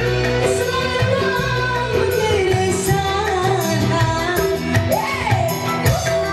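Live dangdut band playing through a PA: a singer's ornamented, sliding melody over keyboard, bass and a steady drum beat.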